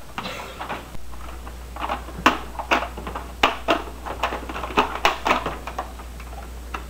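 Plastic toy shotgun being handled: a run of irregular clacks and knocks of its plastic parts, thickest between about two and five and a half seconds in.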